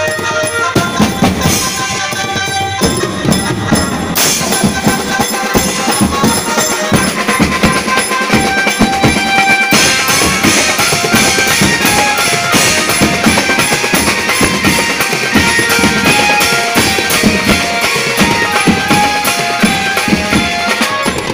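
Live band of drummers beating snare and tom drums in fast, dense patterns, with cymbals crashing, over a held melody line. The cymbals get louder about halfway through.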